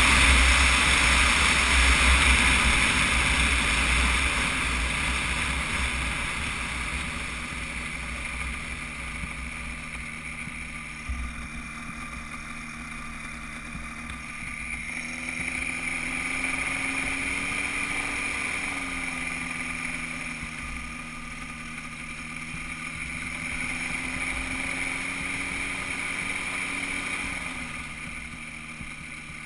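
Weight-shift microlight trike's engine running at low power as the trike rolls out and taxis on grass, with wind rushing on the microphone at first and fading as it slows. The engine note rises and falls gently twice and drops back near the end.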